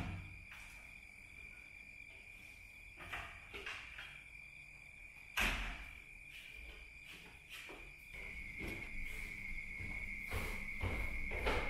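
Steady high cricket trill throughout, with a sharp clunk at a wooden door about five and a half seconds in and a few soft knocks before it. Near the end, soft footsteps come down a staircase.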